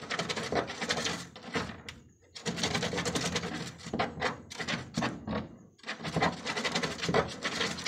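Doe rabbit scratching and shuffling inside a plastic jerrycan nest box while building her nest before giving birth: a rapid, dry scratching clatter in three spells, breaking off briefly about two seconds in and again near six seconds.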